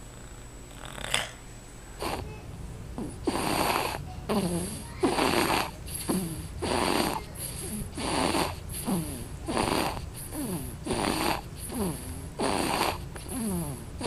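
Loud snoring in a quick, regular rhythm, a snore about every three-quarters of a second, starting about two seconds in after a quieter stretch.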